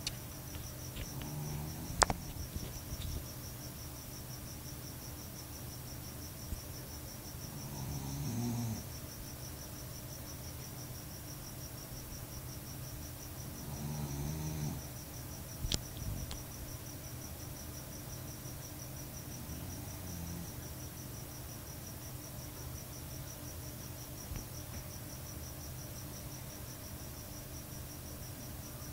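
Staffordshire bull terrier snoring in slow, drawn-out breaths about every six seconds, four in all. Two sharp clicks, one about two seconds in and one near the middle, are the loudest sounds, over a faint steady high-pitched pulsing tone.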